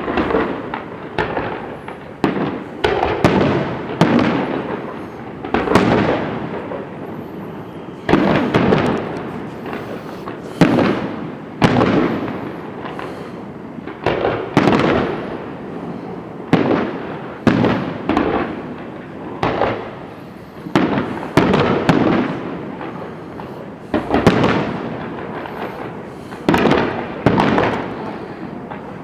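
Fireworks bursting overhead in quick succession, a sharp bang roughly every one to two seconds, each followed by a rumbling echo that fades.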